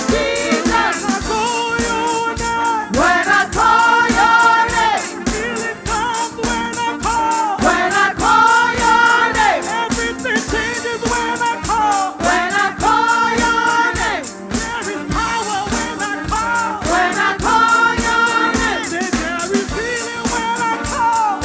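Gospel worship music: voices singing over a band with a steady drum-kit beat.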